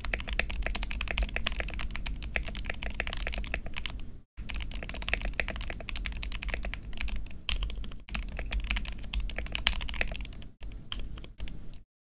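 Fast typing on a GK61 mechanical keyboard fitted with lubed Gateron Optical Yellow linear switches, JWK plate-mounted stabilizers and EVA foam inside the case: a dense, continuous run of key clacks. It breaks briefly about four, eight and ten and a half seconds in, and stops just before the end.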